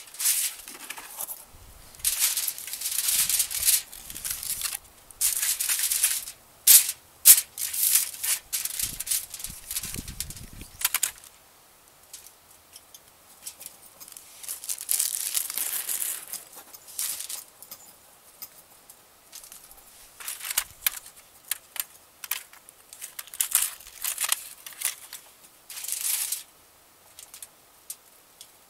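Aluminium foil being crinkled and folded by hand in irregular bursts of rustling, with quiet gaps between them.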